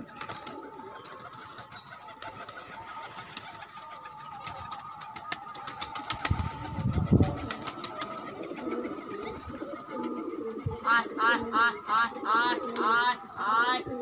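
Domestic pigeons' wings clapping and flapping as a few take off, loudest about six to seven seconds in. From about eleven seconds in, a loud, repeated rising call sounds, roughly twice a second.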